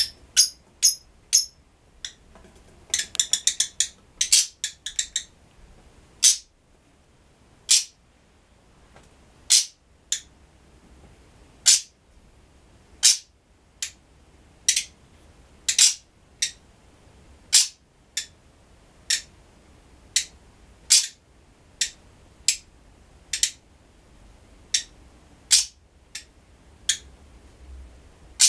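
Black-winged lovebird (Agapornis taranta) calling over and over: short, sharp, high-pitched calls about once a second, with a quick run of rapid calls a few seconds in.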